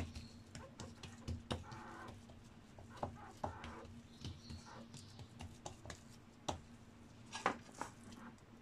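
Hands pressing and spreading rghaif (msemen) dough thin on a wooden board: faint soft pats and light scattered taps and clicks.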